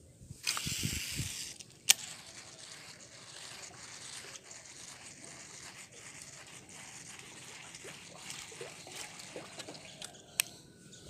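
A loud rustle and a sharp click, then light splashing and trickling of water with a steady low noise as a topwater popper lure is worked across the surface on a fishing line.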